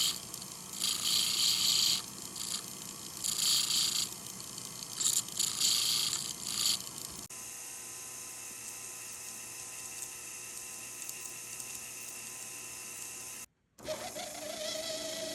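Hand finishing on a ring's prongs: about five short, scratchy bursts of sanding or filing, each about a second long. After a cut, a quieter steady hum follows, with a higher whine starting near the end.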